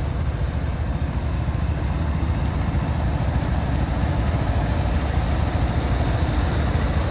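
Several garden tractor engines, among them a John Deere 140 and a Case, idling together with a steady low rumble.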